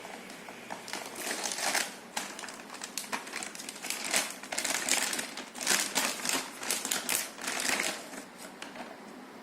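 Close, irregular clicking and brief scraping or rustling from hands working on a graphics card, as small parts are handled and moved, over a steady low hiss.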